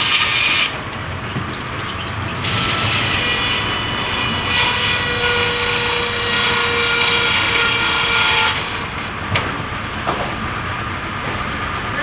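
Sawmill machinery running: a large circular saw cutting through a log at the very start, then belt-driven machinery with a whine of several steady high tones as boards are fed through. Near the end come a couple of sharp knocks.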